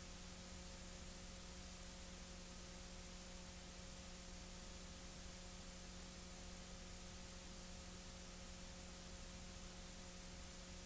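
Steady hiss with a low electrical hum and nothing else: the noise floor of an old, transferred recording.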